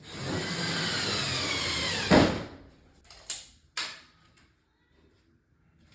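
Electric drill-driver running for about two seconds, its pitch falling steadily as the motor slows under load, ending in a sharp knock; two short clicks follow about a second later.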